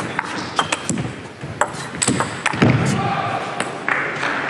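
Table tennis rally: the plastic ball is struck by rubber-faced paddles and bounces on the table in a fast run of sharp clicks. The clicks stop in the last second as the point ends.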